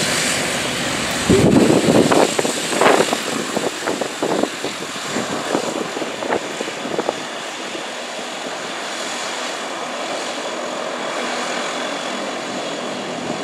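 Embraer 120 Brasilia's twin turboprop engines running as the airliner taxis away, a steady propeller and turbine whine that eases off as it moves away. Irregular gusty bursts come over the first several seconds.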